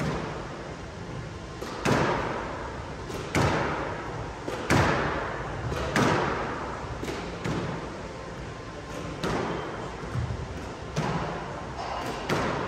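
Squash ball struck with a racket and smacking off the court walls again and again, a hit every second or so, each crack ringing out in the court's echo.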